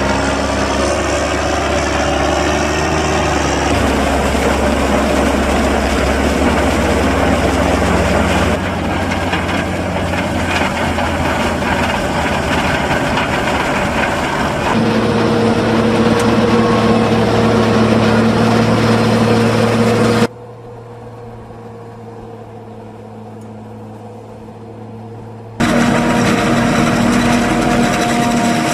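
Heavy diesel engines of farm tractors and a wheel loader running under load while a forage wagon is emptied onto a corn silage clamp and the heap is pushed up. The sound shifts abruptly several times, with a quieter stretch of steady engine hum about two-thirds of the way through.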